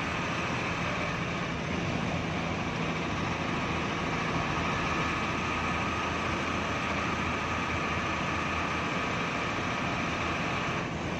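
Steady running noise inside a Hino AK3HR bus on the move: the diesel engine drones under a constant haze of road and wind noise, with no change in pace.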